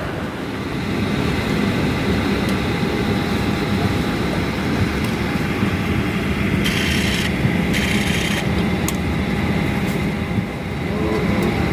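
Steady cabin hum of a Boeing 737-800 parked at the gate: ventilation air and a low rumble with a few faint steady tones. About seven and eight seconds in come two short rubbing hisses, the camera brushing against the seat by the window.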